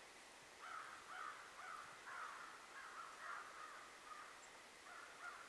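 Faint bird calls in the woods: a run of short, rough calls about two a second, a brief pause, then a few more near the end.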